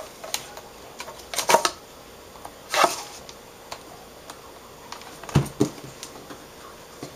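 Handling noise of an LCD backlight strip assembly being slid back into the panel frame: a few short scrapes and clicks, with a sharper knock about five seconds in.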